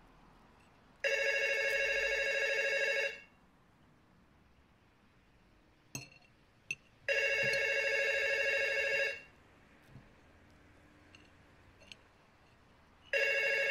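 Landline telephone ringing unanswered: three rings of about two seconds each, one every six seconds, with a few faint clicks between them.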